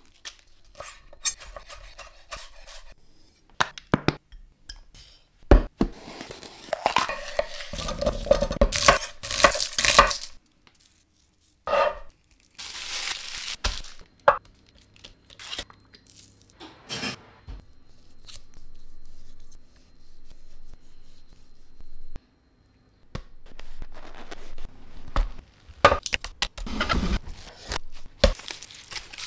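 Close-miked food-preparation sounds: a metal pan and utensils knocking and scraping on a wooden chopping board, with cling film crinkling over a bowl near the end.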